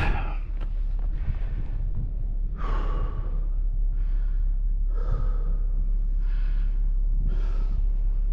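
A person breathing hard, with a loud breath about once every second, over a steady low rumble.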